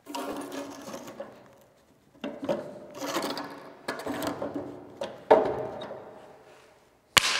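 Knocks and prying scrapes of a wooden board and hammer working the crank arm off the steel case of an old P&H AC arc welder, each knock leaving the hollow sheet-metal housing ringing. The loudest knock comes about five seconds in, and a sharp click near the end.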